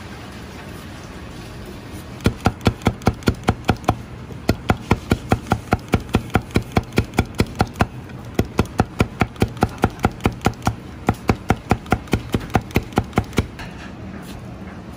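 Chinese cleaver chopping boiled ma bamboo shoot on a thick plastic cutting board. Rapid, even knocks come about five a second in four runs with short pauses between them, starting about two seconds in and stopping near the end.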